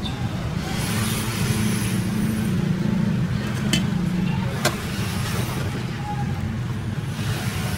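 Steady low rumble of road traffic, with two sharp knocks close together about halfway through.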